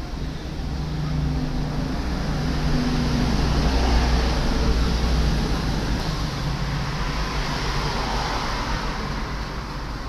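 Background road traffic: a continuous noise with a low engine hum that swells to its loudest about four seconds in and then eases off, like a vehicle passing.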